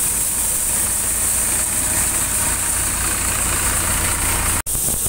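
Massey Ferguson tractor engine running steadily while driving a threshing machine: a continuous mechanical drone with a high hiss on top. The sound cuts out for an instant near the end.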